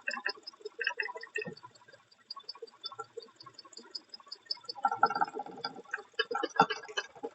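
Toyota Hiace engine running with a rhythmic ticking knock, about five ticks a second, with louder clatter about five seconds in: the knocking fault the engine is being recorded for.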